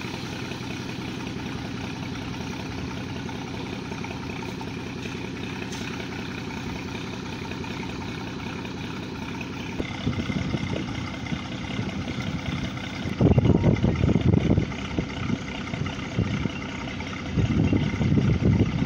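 Portable air compressor's engine running steadily. From about ten seconds in, loud irregular rushing surges come and go as compressed air blasts water and sludge up out of a silted borewell's casing pipe.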